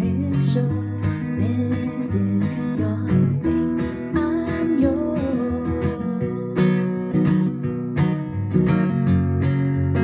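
Acoustic guitar strummed in a steady rhythm.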